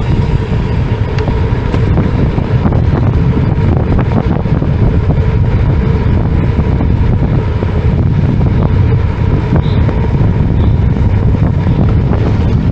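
Steady wind rumble on the microphone of a bicycle being ridden at speed.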